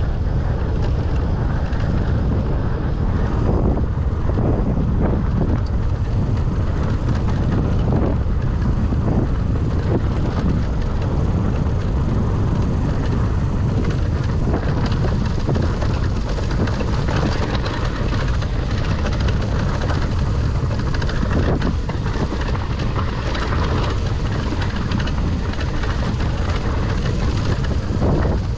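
Electric mountain bike descending a rough dirt trail: steady tyre rumble on the dirt with wind buffeting the bike-mounted camera's microphone, and scattered knocks and rattles as the bike hits rocks and bumps.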